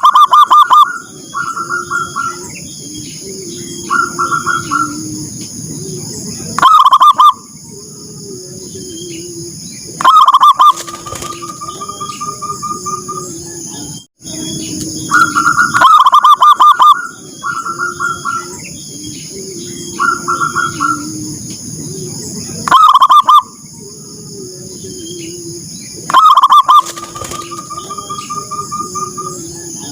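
Zebra doves (perkutut) cooing: loud, rapidly rippling coos repeat every few seconds over softer, lower cooing and a steady high-pitched background drone. The sequence repeats after a brief dropout about halfway through, as a looped lure call.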